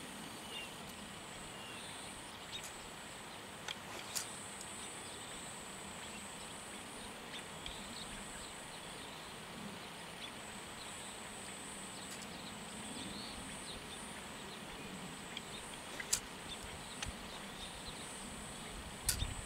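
Quiet outdoor ambience on an open grass range: a steady background hiss with a faint, steady high-pitched hum, broken by a couple of isolated sharp clicks about four seconds in and again near the end.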